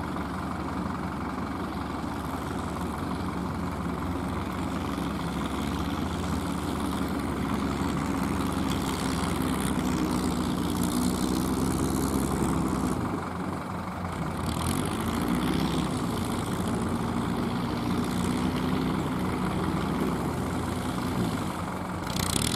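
Kubota ZL3001 diesel tractor engine running steadily under load while working a straw baler, with a brief drop in engine sound about halfway through before it picks up again.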